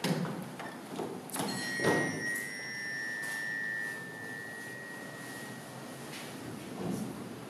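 Electronic tone from a sound-art installation's coil-and-magnet speakers. Two sharp knocks come about a second in, then a steady high tone with fainter higher tones above it holds for about four seconds and fades out. A soft thump follows near the end.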